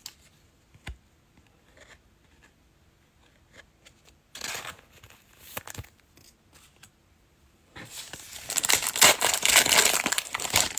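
Trading-card pack wrapper being handled and torn open: a short rustle about four seconds in, then loud crinkling and tearing over the last three seconds.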